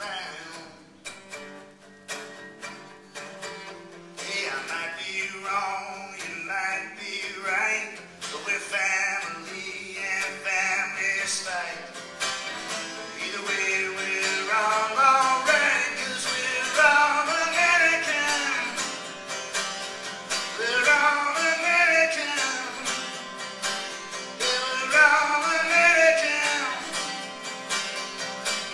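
A song with plucked guitar and a singing voice. It opens with guitar picking, and the singing comes in about four seconds in.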